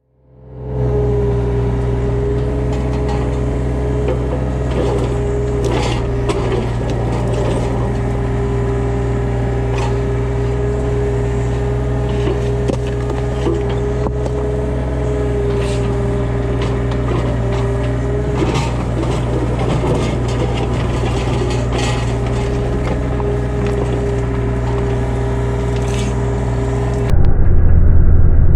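Hitachi 35U mini excavator's diesel engine running at a steady throttle with a steady hydraulic-like whine, and scattered knocks and clanks of rock and steel as it works. Near the end the sound cuts to a louder, duller engine run.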